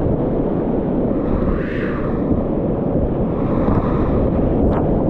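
Whitewater rapid rushing around a kayak as it runs through, a loud, steady noise of churning water with a deep rumble on the microphone.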